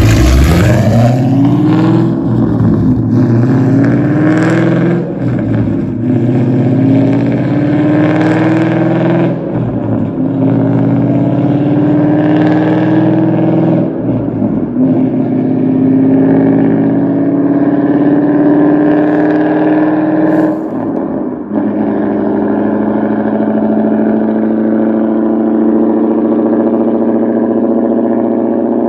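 Ford Mustang GT's 5.0 Coyote V8 through LT headers and an X- and H-pipe with no mufflers or resonators, accelerating up through several gears. The pitch climbs and drops back at each shift, with each climb slower than the last. For the last several seconds it holds a steady note.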